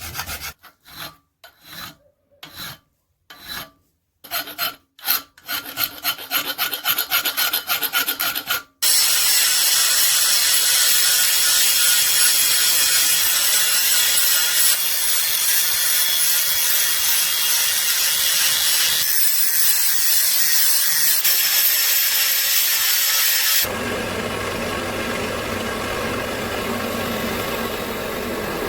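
Metalworking tools working on a blade: repeated rasping strokes like hand filing, about two a second and then faster, then a steady loud grinding noise that shifts in character twice.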